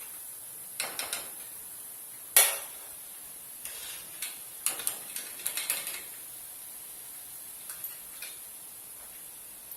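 Metal kitchen utensils clinking against a pan or dish in scattered short clicks, a few at a time, with one louder clack about two and a half seconds in.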